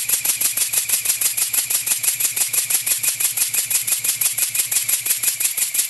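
Handmade V-twin steam engine running on compressed air, its exhaust giving a rapid, even beat of hissing puffs at a steady speed.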